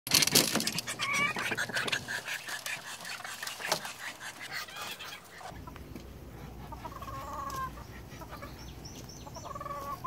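A flock of chickens clucking and calling, busy and close with many sharp clicks for the first five seconds or so. After that it is quieter, with a few separate calls over a low steady rumble.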